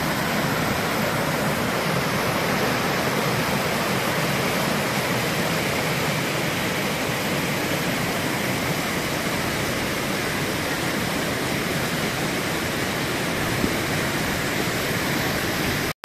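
River water rushing over rocks in whitewater rapids and cascades, a loud steady rush with no let-up.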